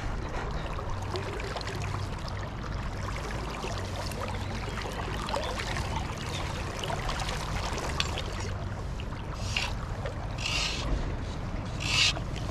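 River water running steadily past a wading angler, with three brief splashes in the last few seconds.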